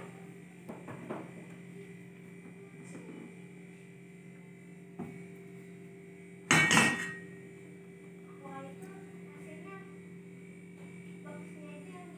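A steady hum runs throughout, with a brief loud noise about six and a half seconds in and a few faint knocks near the start.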